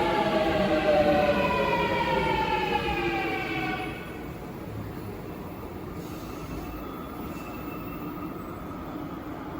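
Busan Metro Line 2 train braking into the station: its electric traction motors whine in a chord that falls steadily in pitch as it slows. The whine cuts off about four seconds in, as the train comes to a stop. A quieter steady hum and rumble carry on after that.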